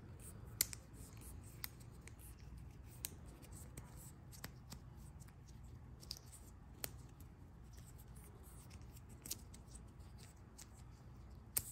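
Faint handling of a rubber wiper-blade insert as thin metal stiffener rods are slid along it by hand: scattered sharp clicks and light rubbing, irregularly spaced, the loudest about half a second in and near the end.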